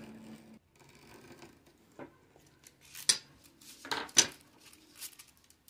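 A few scattered sharp clicks and taps of small objects handled on a wooden board, as a pen is set down and a ruler and a paper-wrapped chipboard strip are moved; the two loudest come about three and four seconds in.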